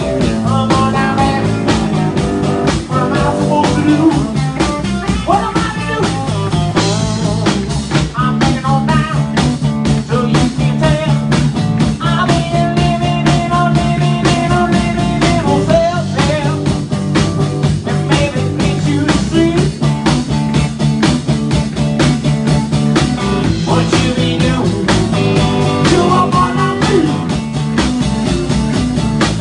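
Live blues-rock trio playing: electric guitar over electric bass and a drum kit, a continuous full-band groove.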